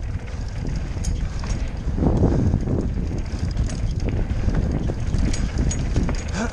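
Wind buffeting a helmet-mounted camera's microphone during a downhill mountain-bike ride, over the rumble of tyres rolling on a dirt trail. The Surly Instigator hardtail rattles and clicks over the bumps.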